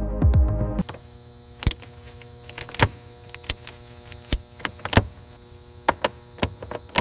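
Ratchet wrench tightening a car battery terminal: sharp metallic clicks about every half second to second over a steady hum. Before that, a loud low rumble cuts off suddenly about a second in.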